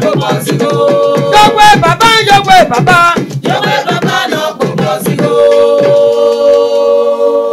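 A woman sings over a clicking percussive beat. About five seconds in, the beat drops out and a single held note rings on steadily.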